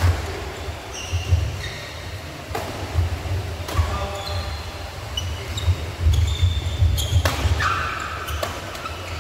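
Badminton rally: racquets striking the shuttlecock in several sharp hits a second or more apart, with short high squeaks of shoes on the court floor, over a steady low rumble.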